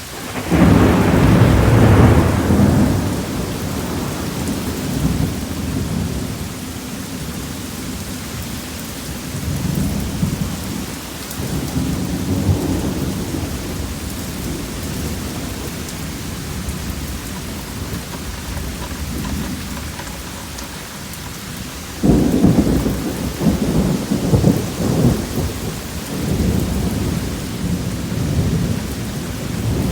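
Thunderstorm: steady rain with thunder. There is a loud rumble at the start, fainter rumbles about ten to thirteen seconds in, and a sudden loud clap about twenty-two seconds in that rumbles on for several seconds.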